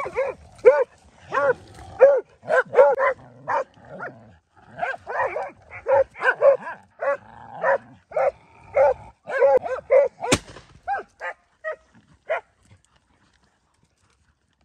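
Hunting dogs barking at a bayed wild boar, short yelping barks two or three a second. The barking thins out and stops about twelve seconds in. There is one sharp click shortly before.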